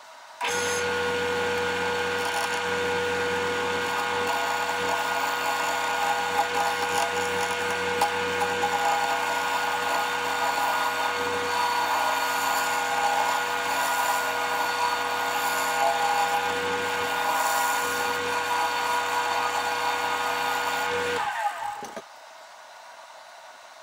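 Wood lathe running with a steady motor hum while a gouge cuts a spinning heart-shaped cherry blank, throwing shavings. The sound starts suddenly about half a second in and cuts off about two seconds before the end.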